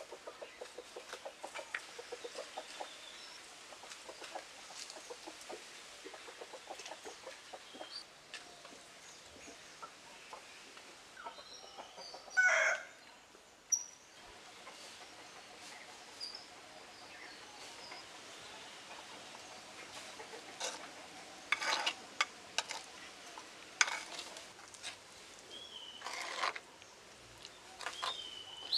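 Bird calls in the background, of the kind made by domestic chickens: a run of short repeated calls in the first several seconds, a few louder brief calls about halfway through and again in the last third, and a few faint high chirps.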